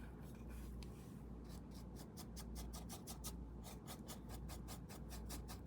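Paintbrush stroking and dabbing colour onto the painting surface in quick, faint, short strokes, about five a second from a second and a half in.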